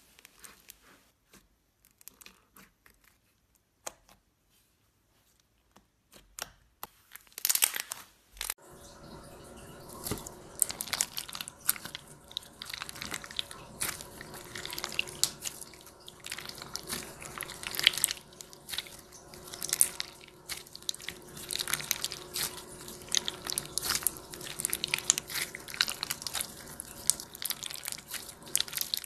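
Slime being handled by hand: a few faint pokes into thick slime, then, about a third of the way in, clear slime packed with jelly cubes is squeezed and pressed between the fingers, giving dense crackling clicks and pops.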